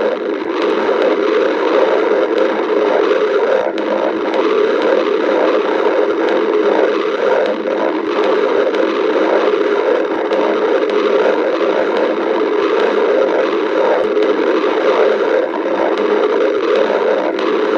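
A person's stomach growling: a continuous rough rumbling gurgle that runs on without a break.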